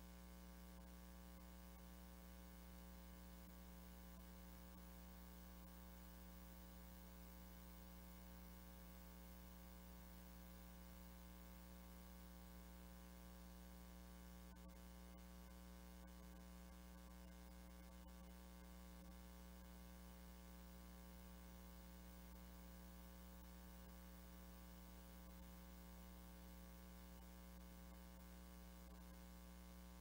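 Near silence with a faint, steady electrical hum.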